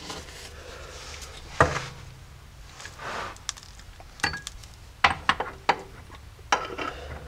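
NP231 transfer case shafts and drive chain clinking and knocking against the aluminium case as they are worked into place by hand. There is a sharp clink about one and a half seconds in, then a run of several more in the second half.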